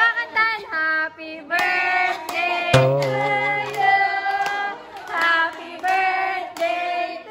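Singing with music, the voices wavering in pitch. A sharp knock about three seconds in, followed by a short low hum.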